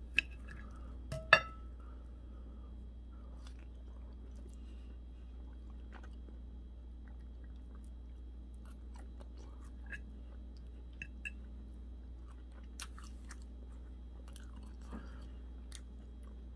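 A person chewing a mouthful of chicken, with two sharp clinks of a fork or knife against a ceramic plate about a second apart near the start and a few faint ticks after, over a steady low hum.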